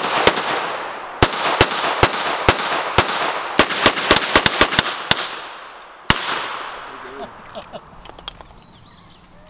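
Revolvers fired by several shooters on a firing line at once: a rapid, uneven string of about two dozen shots, many overlapping, each ringing out across the range. The firing stops with a last single shot about six seconds in, and the echo fades.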